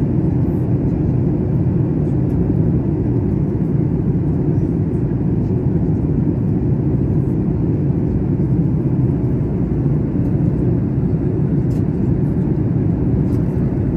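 Steady low rumble of jet engines and airflow heard inside the cabin of a Boeing 737 airliner in flight, even and unchanging.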